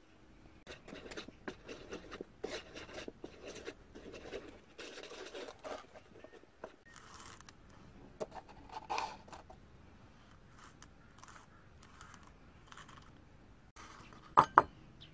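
Hands handling sandpaper and an abrasive pad on a wooden board, with irregular scraping and rustling through the first half, then two sharp clicks close together near the end.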